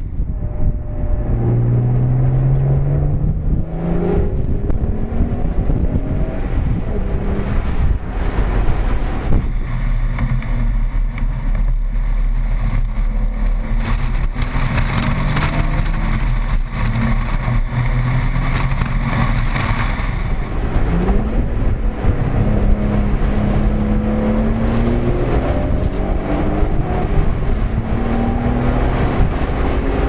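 Nissan 300ZX's V6 engine pulling hard and revving up through the gears, its pitch rising repeatedly, with road and wind noise, heard from inside the car. The sound changes abruptly twice as the audio switches between a GoPro in the cabin and a voice recorder in the rear hatch.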